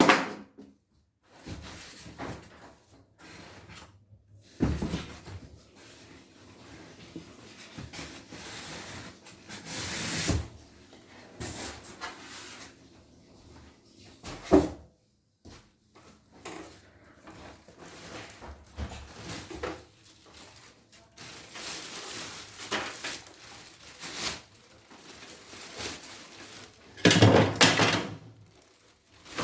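Irregular knocks, clicks and rustling of parts and tools being handled during repair work on an embroidery machine, with a louder stretch of clattering near the end.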